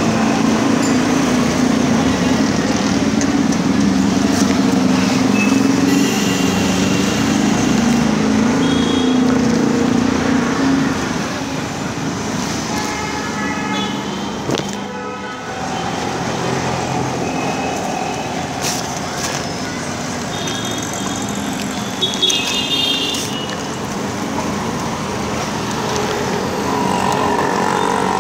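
Street traffic noise: a motor vehicle's engine runs close by for about the first ten seconds, then the sound settles into a quieter, steady background of passing traffic.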